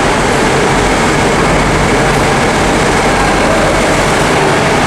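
Loud, steady engine din with a low hum inside a ferry's enclosed car deck, from the ship's diesel engines and idling bus engines around.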